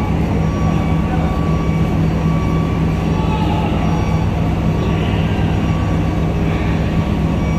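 Heavy diesel engines running steadily: a constant low hum and rumble.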